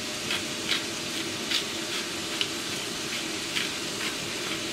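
Ground meat frying in a pan: a steady sizzle with short crackles at irregular intervals.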